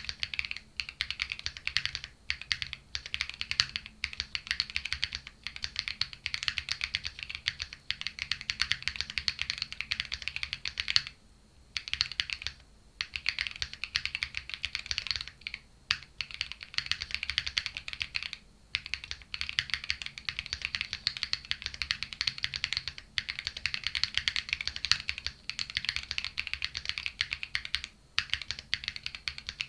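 Continuous typing on a Luminkey65 gasket-mount aluminium mechanical keyboard with Clackbits switches on an FR4 plate and Cherry-profile PBT keycaps: crisp, clacky keystrokes in quick runs, broken by a few brief pauses, the longest about eleven seconds in.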